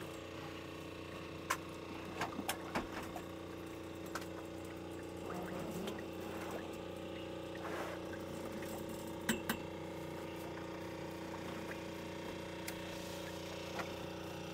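Steady hum of a small engine running on a fishing boat, with water running and dripping as wet mesh trap nets are hauled up over the side, and a few light knocks.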